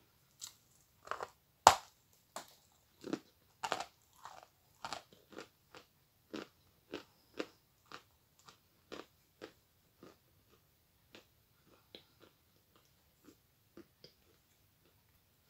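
A person biting and chewing a big chunk of chalk: a run of short, crisp crunches, about two a second, the loudest bite about two seconds in and the crunches growing fainter toward the end.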